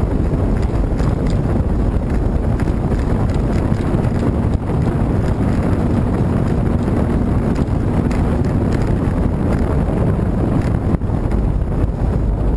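Wind buffeting the microphone of a small open motorboat under way, over the steady running of its outboard motor and the water along the hull. A faint steady tone from the motor comes through for a few seconds in the middle.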